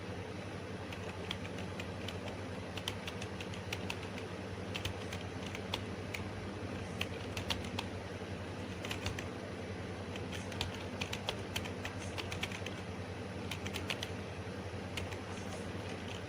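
Computer keyboard typing, short irregular runs of keystrokes, over a steady low hum.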